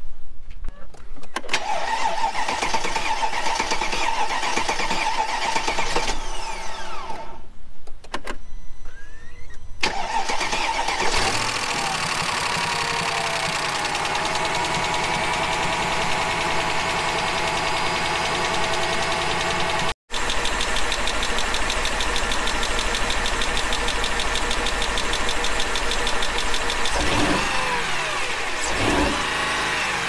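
Mercedes-Benz E500's 5.0-litre V8 starting and running, with the sound breaking off briefly twice. The misfire is still there after a suspected sticky lifter was dealt with, and the owner takes it for a burnt valve.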